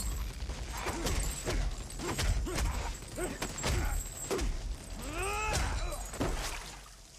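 Fight sound effects: a quick run of punches and body blows with grunts and pained cries from the fighters, a longer cry about five seconds in, over the steady hiss of heavy rain.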